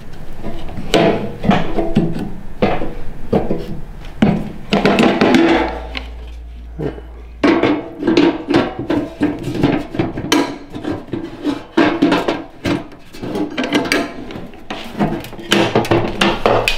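Rapid, repeated knocks of a wooden dowel on a steel ammo can, tapping stove gasket into the lid's channel, with a brief pause about halfway.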